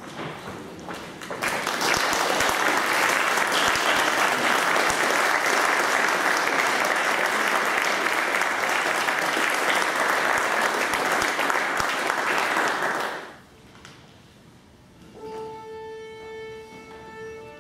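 Audience applauding for about eleven seconds, then dying away. A couple of seconds later a single long note is held steady on the flute, viola and piano, with another note joining near the end.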